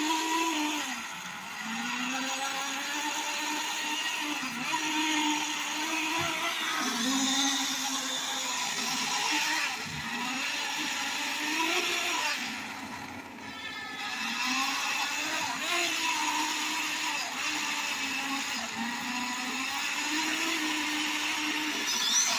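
Revving engine sound, a continuous drone that repeatedly rises and falls in pitch in swells of a few seconds, with brief dips in level a few times.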